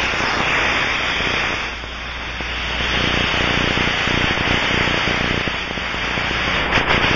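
Pressurized gas leak heard through an Ultraprobe 2000 ultrasonic leak detector: turbulent escaping gas, converted to a steady rushing hiss.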